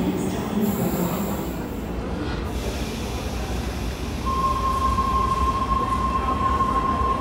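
Sydney Trains electric double-deck trains in an underground station: a departing train rumbling down the tunnel, then a Tangara set standing at the platform with a low rumble. A steady high tone sets in about four seconds in and holds.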